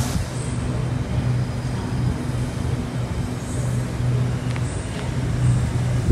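Steady low electrical hum and rumble of a stationary double-deck electric train, swelling and easing slightly, with a pitched drone underneath.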